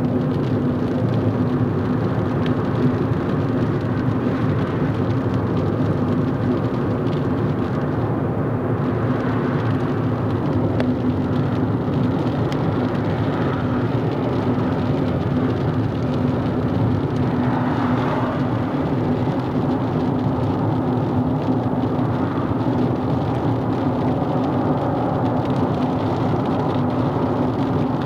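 Car cabin noise while driving at speed: steady engine and tyre-on-road rumble with a constant low hum.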